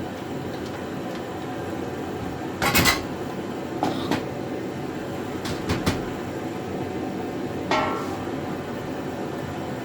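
Small steel parts clinking and tapping against each other a handful of times, the loudest about three seconds in and the last with a brief metallic ring, as a washer and E-clip are worked onto a cart's wheel axle. A steady hum runs underneath.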